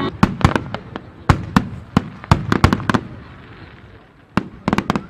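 Aerial firework shells bursting in a starmine finale: a fast, irregular volley of sharp bangs that thins out over about three seconds, then a quick cluster of bangs near the end.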